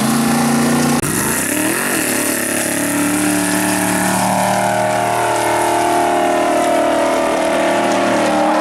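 Off-road racing car engine running hard at high revs. About a second in the pitch drops and climbs back up, then holds steady.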